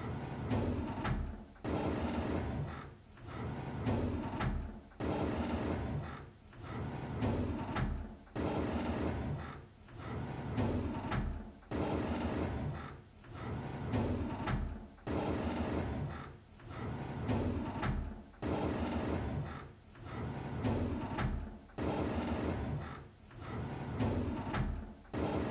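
A drawer being pulled open, over and over about every two seconds: each pull is a short sliding rumble that starts abruptly and fades away.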